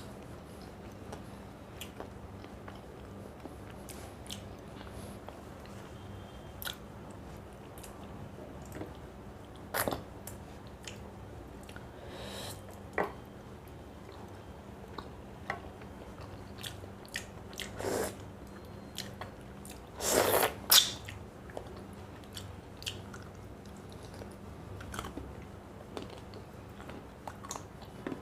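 Close-miked eating: scattered crunches, smacks and chewing noises from someone eating a meal of rice, fish and fried bitter gourd, loudest in a short cluster about two-thirds of the way through, over a steady low hum.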